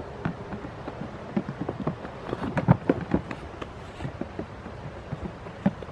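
Goat hooves knocking and clattering on hollow plastic step blocks, a scatter of irregular taps and thuds that are busiest and loudest around the middle.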